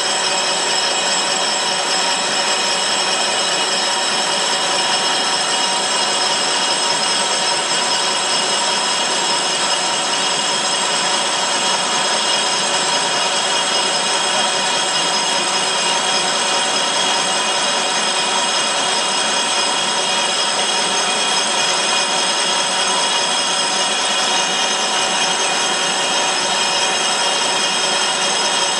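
Tezsan Doruk CNC lathe running with its chuck spinning: a steady machine whine made of several fixed high tones over a hiss.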